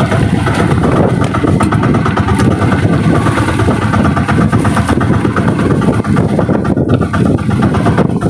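Small engine of a motorized wooden outrigger fishing boat running steadily.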